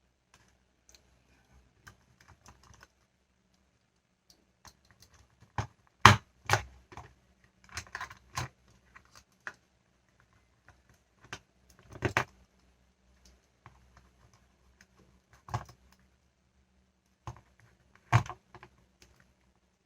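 Hard plastic toy pieces clicking and clattering as they are handled and fitted together, with scattered small clicks and a few louder knocks about six, twelve and eighteen seconds in.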